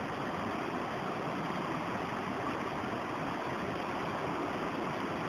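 Water of a rocky stream running, a steady even rush.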